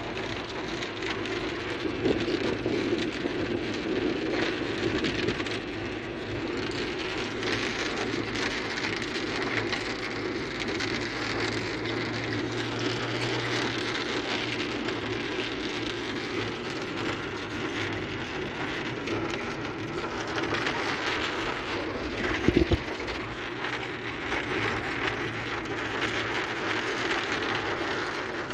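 Heavy rain falling steadily on a car's roof and windscreen, heard from inside the moving car with the car running underneath. A brief sharp knock comes about two-thirds of the way through.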